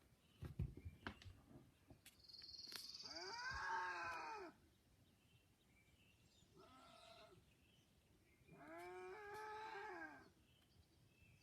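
Three drawn-out wailing vocal calls, each rising and then falling in pitch. The first is the longest and loudest, the second short and faint, and the third about a second and a half long. The calls sound pained, and their source is unidentified. A few soft knocks come before the first call.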